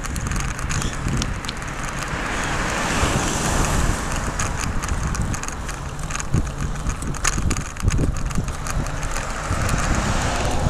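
Bicycle ride recorded from a handlebar-mounted camera: wind rumbling on the microphone, with frequent rattling clicks and knocks from the bike and mount over the road surface. A rushing hiss swells and fades a few seconds in.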